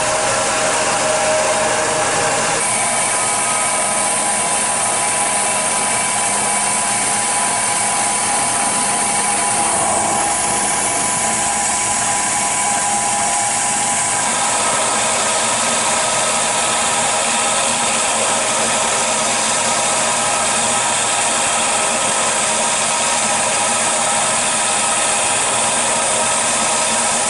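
CNC milling machine running a program: the spindle and cutter give a steady whine over a noisy rush while they cut holes in a board for tool holders. The tones shift a few times as the machine moves between cuts.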